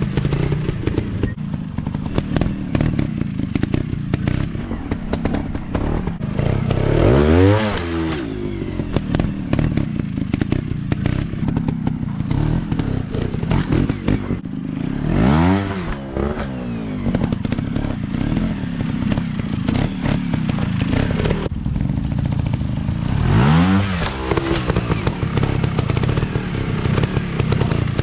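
Off-road dirt bike engines running with a rough, rattly drone, revving up and back down three times, about eight seconds apart.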